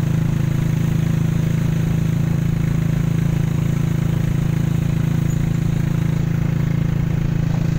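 Engine of an open-sided vehicle running steadily while driving along a road, a constant drone with road and wind noise around it.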